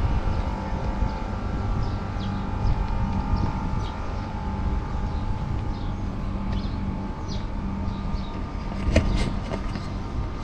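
A steady mechanical hum, an engine or motor running, over a low rumble, with a few faint short high chirps and a brief knock about nine seconds in.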